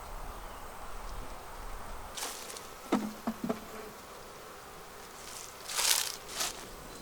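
Honeybees buzzing around the hive, with a few sharp knocks about three seconds in and a brief rustle near the end.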